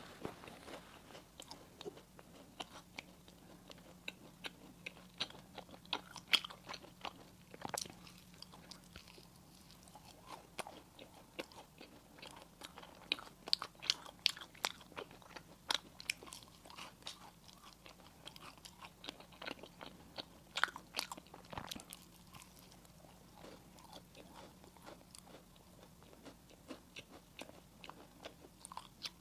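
Close-miked eating: crunchy pastry and sweets being bitten and chewed, heard as irregular sharp crackling clicks that come in busier clusters now and then.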